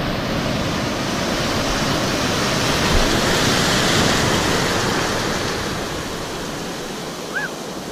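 Ocean surf: breaking waves and whitewater rushing steadily, swelling a few seconds in and easing off toward the end. A brief high chirp sounds near the end.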